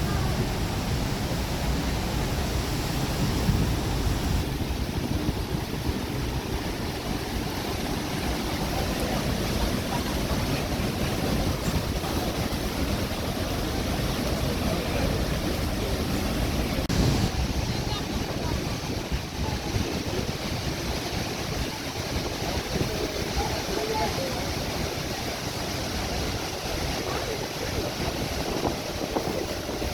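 Steady roar of Niagara's falling water, a dense even rush, with wind buffeting the microphone; the noise changes a little at cuts about four and seventeen seconds in.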